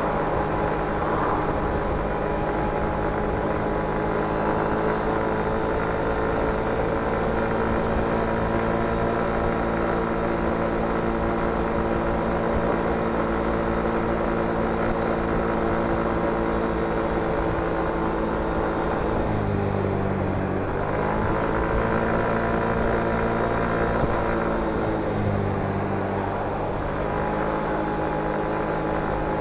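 Motor scooter engine running steadily at cruising speed, heard from on board. Its pitch dips and climbs back twice, about two-thirds of the way through and again a few seconds later, as the throttle is eased and reopened.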